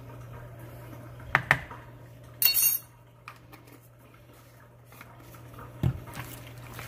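Metal spoon tapping twice on a plastic mixing bowl, then a brief clatter of the spoon being put down, and a soft thump near the end as a hand presses into the bowl. A faint low steady hum runs underneath.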